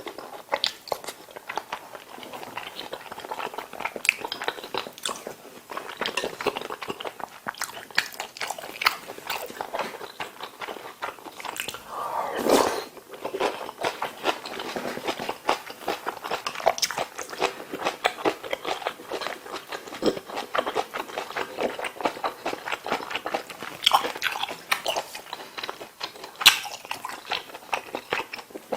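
Close-miked chewing and biting of a person eating, a dense run of small wet mouth clicks, with one louder burst about halfway through.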